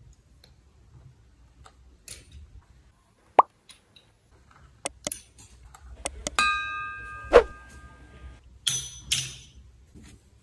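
Subscribe-button sound effect: clicks and a bell ding about six seconds in that rings for about two seconds. Underneath are scattered light taps and scrapes from a pizza-cutter wheel cutting pastry dough on a wooden board.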